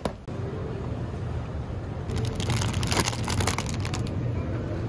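Shopping cart rolling through a store aisle: a steady low rumble with rattling. The rattling gets busier from about two seconds in until near the end.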